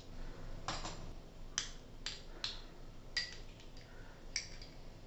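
A spoon clinking against small glass bowls while salt and butter are spooned out: about six sharp clicks, some with a short ring.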